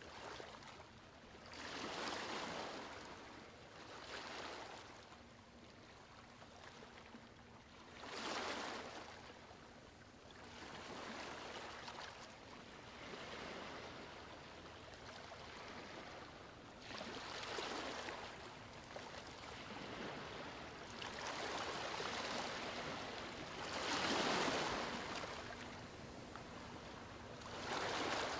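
A rushing noise that swells and fades in irregular waves every few seconds, over a faint steady hum.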